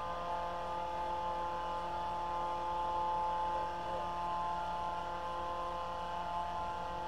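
A steady mechanical hum made of several unchanging tones, like a machine running without a change in speed.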